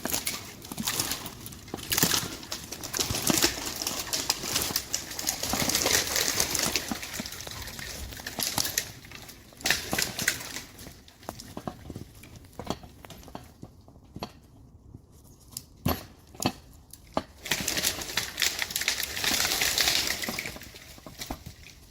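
Branches and brush crackling, rustling and snapping in irregular spells, with scattered sharp knocks.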